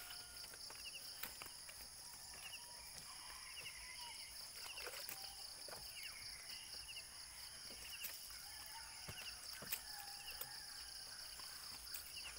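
Insects droning steadily at a high pitch, with short chirps repeating every second or so above it. Scattered soft knocks and splashes come from water being dipped and poured over a motorcycle.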